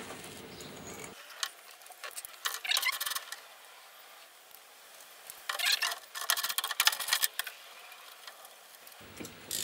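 Metal hand tools being handled: a socket and ratchet clinking and rattling in a few short bursts of clicks, as a socket is picked out and fitted.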